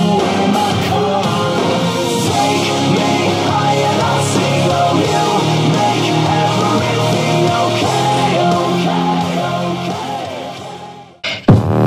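Background rock music with guitar, at a steady level. It fades out about ten seconds in, and a louder sound cuts in abruptly just before the end.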